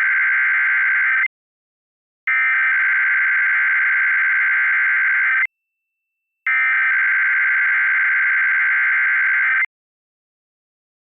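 Emergency Alert System SAME header for a Required Weekly Test: bursts of frequency-shifted digital data tones sent three times. Each burst lasts about three seconds with about a second's gap between them, and the first is already under way and stops about a second in.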